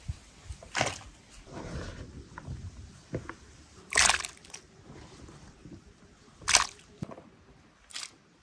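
Water splashing in four short bursts, with quieter handling clicks between them.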